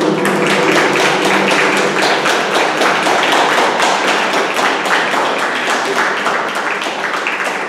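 Audience applauding: dense, fast clapping that thins out near the end, while a steady droning tone fades away in the first second.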